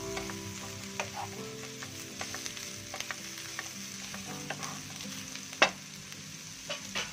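Sliced onions sizzling in hot oil in a nonstick pan on a high flame, stirred with a wooden spatula that clacks and scrapes against the pan. There is one louder knock of the spatula late on.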